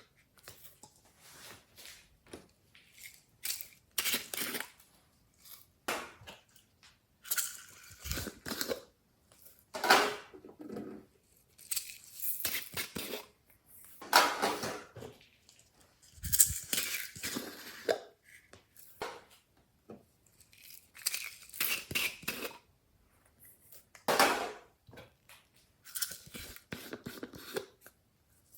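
Hands squeezing, stretching and pressing glossy slime: irregular bursts of wet clicks and crackles every second or two, with short pauses between them.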